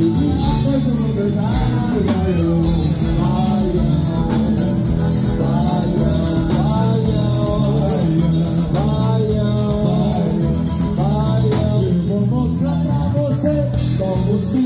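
Music: a song with a singing voice over a steady percussion beat and bass.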